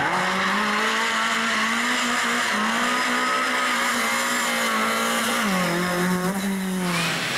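Lada rally car's four-cylinder engine held at high revs through a drift, with tyres squealing on tarmac. The engine note is steady and drops a little in pitch about five and a half seconds in.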